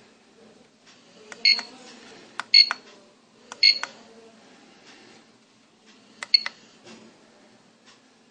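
Four short electronic beeps, each with a sharp click, spaced unevenly: three about a second apart, then one more a couple of seconds later. They are typical of push-button presses with buzzer feedback on a microcontroller alarm clock circuit.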